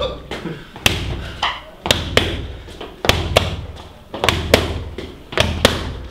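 Gloved punches smacking into leather focus mitts: sharp slaps, about ten of them, some in quick one-two pairs, over a low thudding that comes back about once a second.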